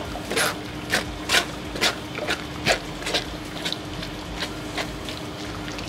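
Mushroom pulp being pressed through a stainless steel chinois: a run of short scrapes and taps on the metal mesh, about two a second at first and then further apart, over a steady low hum.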